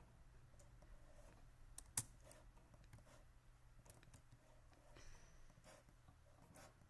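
Near silence with a few faint, scattered clicks and one sharper click about two seconds in.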